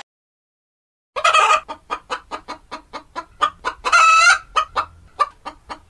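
Chicken clucking, starting about a second in with a loud squawk, then a fast even run of short clucks at about four a second, with a longer drawn-out call in the middle.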